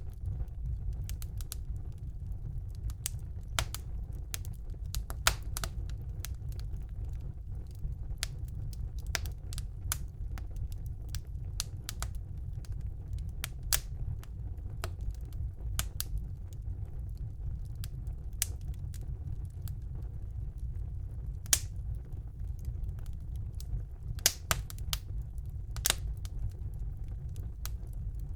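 Wood fire burning in a fireplace: a steady low rumble of flames with irregular sharp crackles and pops, a few louder pops scattered through.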